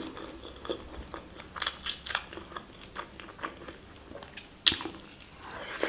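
Close-up chewing and wet mouth sounds of someone eating mutton curry with basmati rice by hand, with scattered clicks and smacks; the sharpest smack comes about four and a half seconds in.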